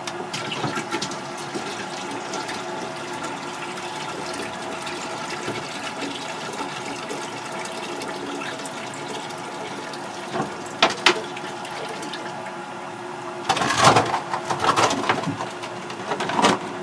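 Maple sap pouring steadily from a plastic jug into a stainless steel bucket. A couple of sharp clicks come about eleven seconds in, and a louder spell of clattering follows near the end as the pouring stops.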